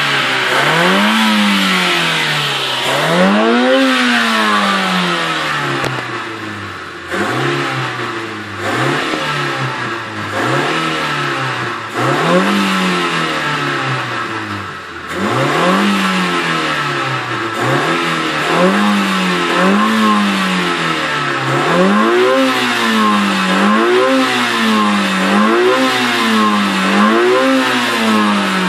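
Stock Honda Civic EG3's 1.3-litre D13 four-cylinder engine being blipped repeatedly in neutral, on its standard exhaust and intake: each rev rises and falls back toward idle, one every second or two, with the blips coming quicker and closer together in the last third.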